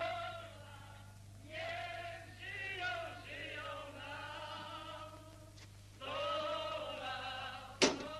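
Voices singing together in long, wavering held notes, phrase after phrase, over a low steady hum, with one sharp click near the end.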